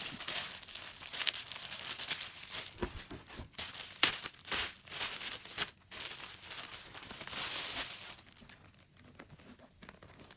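Packaging being unwrapped by hand, crinkling and tearing in uneven bursts with sharp crackles, loudest about four seconds in. It dies down after about eight seconds.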